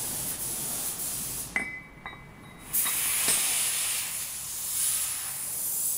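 Steady hiss with metal clinks and a knock as a cooled metal bush is set into the heated bore of a rock breaker housing for an interference fit: a ringing clink about one and a half seconds in, a brief lull, then a dull knock a little after three seconds.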